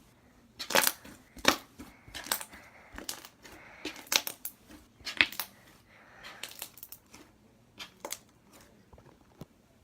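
Slime being pressed by hand, giving irregular sharp crackles and pops, a dozen or so with short gaps between them.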